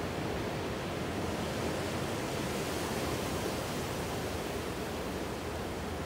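Ocean surf washing onto a rocky beach: a steady, even rush of waves.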